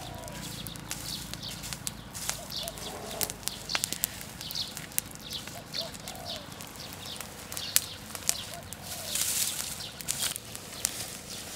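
Open fire of dry grass and twigs crackling, with sharp pops scattered irregularly and a short hiss about nine seconds in.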